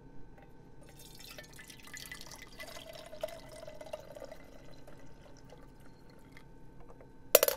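Liquid dripping and trickling, with small ticks over a faint hiss, ending in a short, sharp impact near the end.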